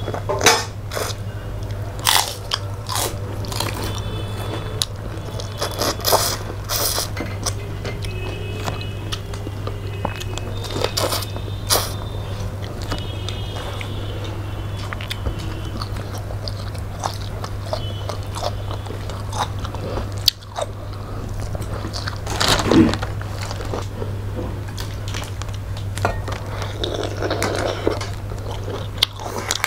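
Close-up eating sounds of people eating fish, prawns and rice by hand: irregular chewing, crunching and wet smacks, with fingers working food on steel plates. A steady low hum runs underneath.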